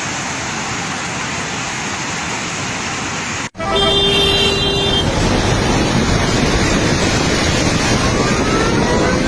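Steady rush of floodwater. After an abrupt cut about three and a half seconds in, the rush is louder, and a vehicle horn sounds for about a second.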